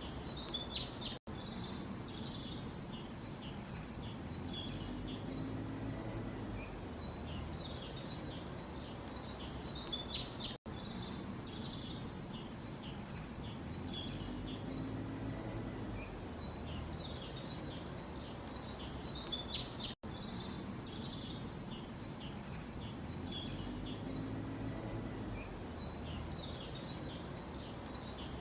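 Small songbirds chirping and twittering in quick repeated phrases over a low background hum of ambient noise. The recording is a short loop that repeats about every nine and a half seconds, with a brief dropout at each loop point.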